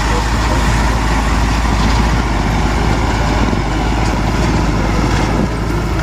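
Concrete mixer truck driving slowly past on a dirt road, its diesel engine running steadily under a heavy, even low rumble.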